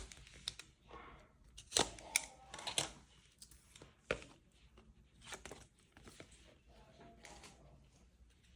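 Packaging being torn open and crinkled by hand, irregular rustling with several sharp clicks and snaps, the loudest about two seconds in.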